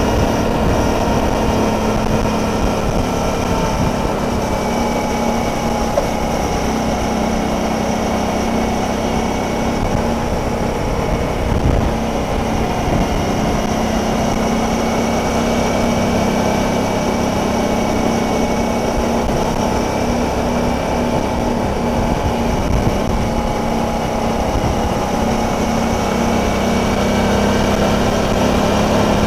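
Suzuki DL650 V-Strom motorcycle's V-twin engine running steadily at cruising speed, with road and wind noise.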